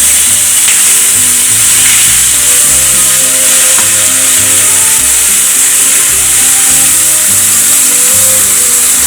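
Onions and ginger-garlic paste sizzling steadily in hot oil and ghee in the biryani pot, a loud hiss, with background music of held melody notes over a bass line.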